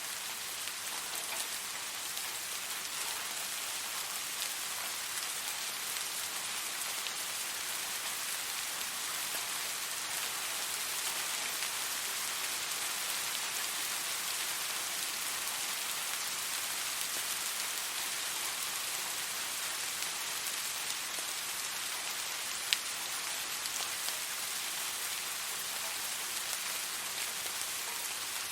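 Steady rain falling on a surface, an even patter of many drops. One sharp drop or tick stands out near the end.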